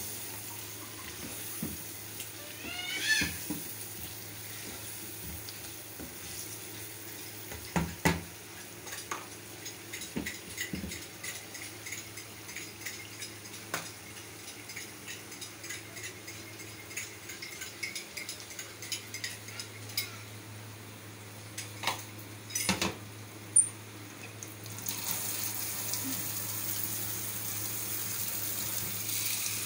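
A metal spoon scraping and knocking against a pan while spiced chicken frying in it is stirred, over a faint sizzle and a steady low hum. About four seconds before the end, water starts running steadily.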